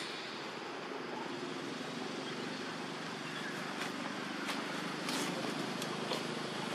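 Steady outdoor background noise with a faint low hum, and a few short faint clicks in the second half.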